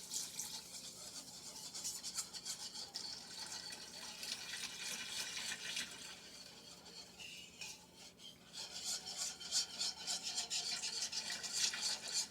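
A utensil stirring a flour-and-butter roux sauce in a pot, scraping against the pan in quick repeated strokes, with a brief lull about seven seconds in.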